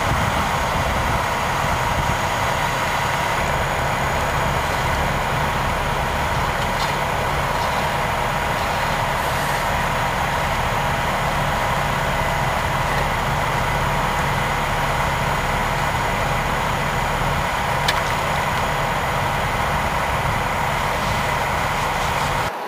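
Steady drone of heavy engines running at an accident scene, such as an idling fire engine, with a low hum and a steady higher whine that hold level throughout.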